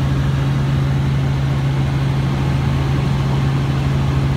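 Helicopter engine and rotor drone, a steady low hum with a strong constant tone, unchanging throughout.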